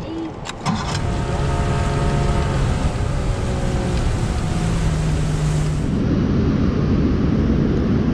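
Boat's outboard motor throttled up after a couple of clicks about half a second in, then running steadily as the boat moves over the water. About six seconds in the sound turns rougher, with more rushing water and wind.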